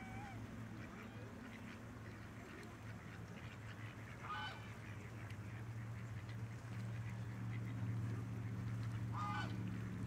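Two short honking calls from waterfowl, about five seconds apart, over a steady low hum that grows louder in the second half.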